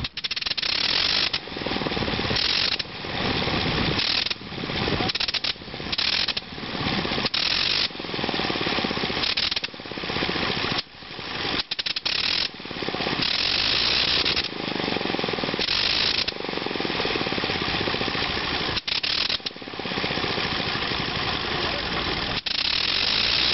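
Le Rhône rotary aero engine firing roughly in a run of bursts, each building for a second or two and then cutting off abruptly, with a harsh rattling clatter. The engine is catching but not yet running steadily.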